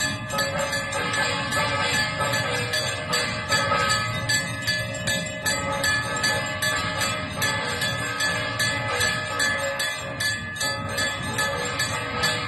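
Temple bells ringing continuously, struck over and over, their many ringing tones overlapping into a steady clangour.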